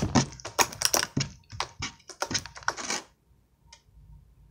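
Jiggly homemade slime being kneaded and squeezed by hand, making rapid wet clicks and pops that stop about three seconds in; one faint click follows a little later.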